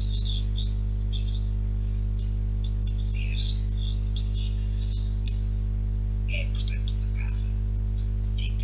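Steady low electrical hum, with short high chirps and squeaks scattered over it.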